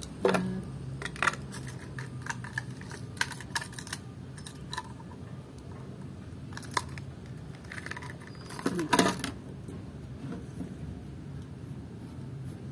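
Small plastic items being handled: scattered light clicks, taps and plastic crinkling as packaging and a small plastic spray bottle with a metal clip are picked up and moved. There is a brief louder sound about nine seconds in.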